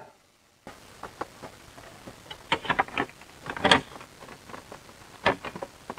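Faint scattered clicks and light taps over a low hiss, the loudest a little past the middle, after a brief dead-silent gap at the start.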